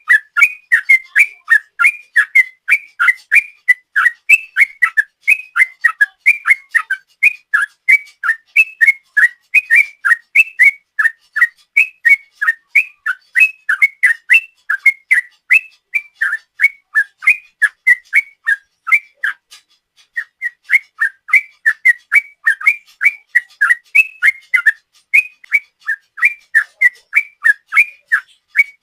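Yellow-vented bulbul (trucuk) singing its long 'ropel' song: a fast, unbroken run of short whistled notes, about three a second, with a brief pause about twenty seconds in.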